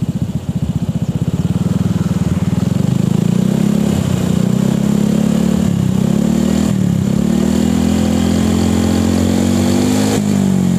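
Honda PCX 160 scooter's single-cylinder four-stroke engine running through an SKR aftermarket 'standard racing' exhaust. It idles, then is revved three times, the last rev held for a few seconds before dropping back. The exhaust note is smooth and mild.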